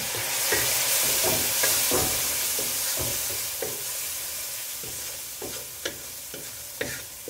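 Onions and ground spices sizzling in a hot pan just after a splash of water, the hiss loudest in the first two seconds and then slowly dying down. A wooden spoon scrapes and knocks against the pan about every half second as it stirs.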